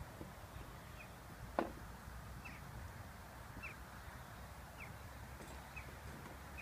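A bird giving short, slightly falling chirps about once a second, over a faint low rumble, with a single click about one and a half seconds in.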